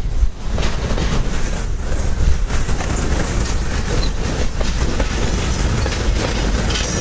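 Freight train of boxcars and a centerbeam lumber flatcar rolling past close by, with a steady heavy rumble and steel wheels clattering over the rail joints.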